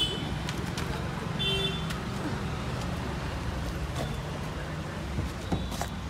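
Road traffic with a vehicle engine running steadily close by, and two short horn toots, one at the start and one about a second and a half in.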